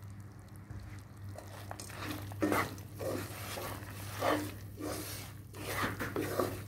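Wooden spatula stirring roasted fox nuts, dry fruits and coconut through sugar syrup in a nonstick pan: short crunchy scraping and rustling strokes, coming about once or twice a second after the first couple of seconds.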